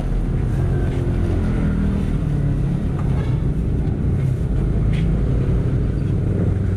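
Electric corn grinding mill running steadily while dried corn is fed into its hopper and cracked.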